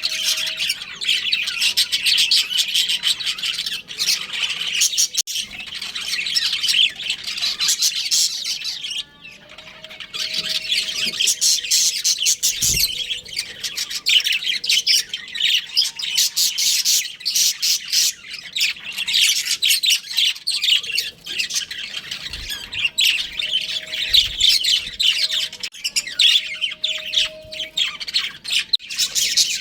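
Budgerigars chirping and chattering rapidly and without pause, with short squawks mixed in and a brief lull about nine seconds in.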